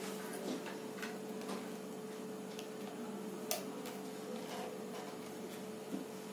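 Whiteboard marker writing on a whiteboard: faint, irregular taps and scratches of the tip, with one sharper tap about three and a half seconds in, over a steady low hum.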